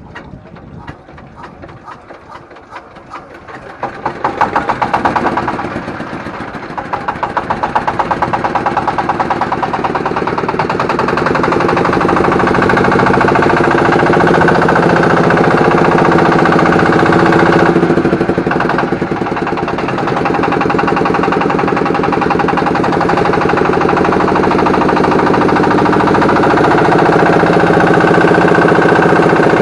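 Boat engine starting about four seconds in with rapid regular firing, dipping briefly, then picking up and running steadily and loudly.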